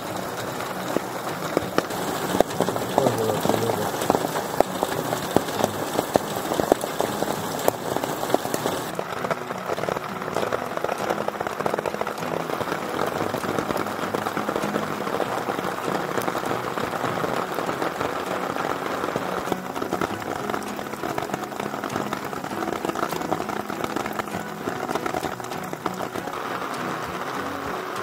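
Heavy rain pouring onto bare dirt ground, a dense steady patter of drops. It sounds a little duller from about nine seconds in.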